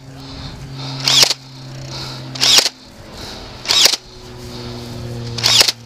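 Nerf foam-dart blaster being fired repeatedly, four sharp shots about a second and a half apart.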